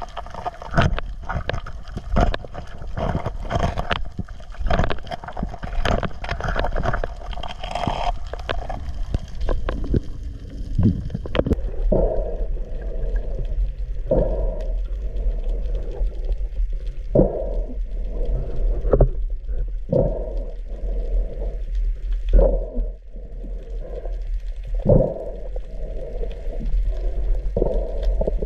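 Underwater sound picked up through an action camera's waterproof housing: a dense run of sharp clicks and knocks for the first eleven seconds or so. After that comes a steady low rumble with muffled swishes about once a second.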